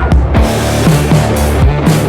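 Loud rock music with a full drum kit and guitar, playing a steady beat.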